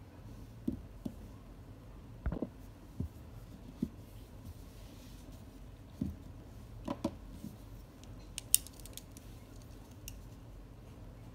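Small desk handling sounds: a pen and a plastic highlighter picked up and set down on a spiral notebook, giving scattered light taps and clicks. The loudest is one sharp click about eight and a half seconds in.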